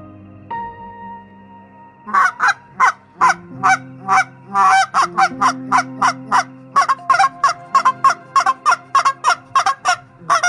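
A bird's loud repeated calls, short and rapid at about three a second, starting about two seconds in.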